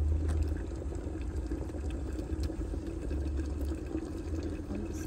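Wood fire burning under a lidded cooking pot on a brick stove: a steady rushing noise with scattered small crackles.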